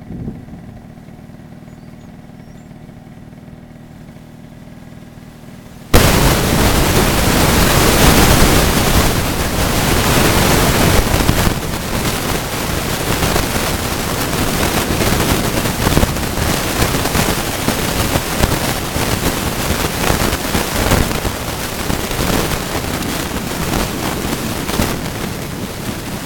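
A faint steady hum, then about six seconds in a loud harsh crackling static cuts in suddenly and keeps going. It is an audio fault that the uploader says came from the upload.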